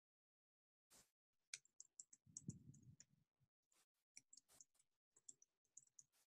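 Faint computer keyboard typing: a run of light key clicks, with a short pause near the middle before a second run.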